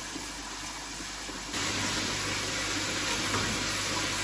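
Food sizzling in a hot frying pan, at first sausage slices frying in margarine, with a steady hiss that jumps louder about one and a half seconds in.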